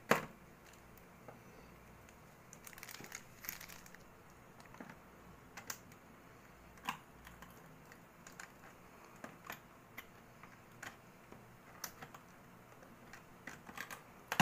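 Handling noise from a power cord and plug being fitted by hand among cables: a sharp click right at the start, then scattered faint clicks and rustles.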